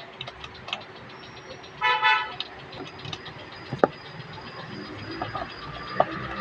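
A vehicle horn sounds in two quick beeps about two seconds in, with a few sharp clicks later.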